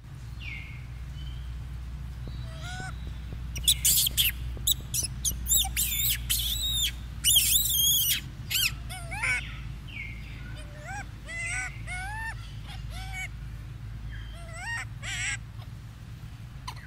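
Birds chirping and calling: a loud cluster of sharp high chirps from about four to eight seconds in, then a run of short rising-and-falling whistled notes, over a steady low hum.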